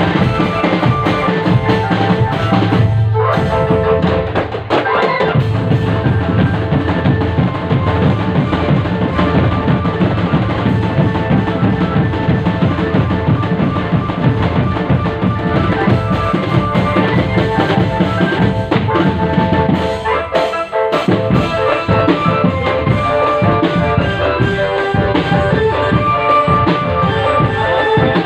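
Drum band music played live: bass and snare drums beating under a melody, with two brief breaks in the playing.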